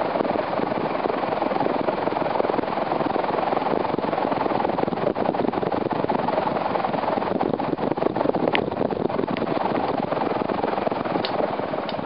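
Casablanca Delta 42-inch ceiling fan running fast, its small blades driving a strong, steady rush of air with a fluttering edge, loud close beneath the blades.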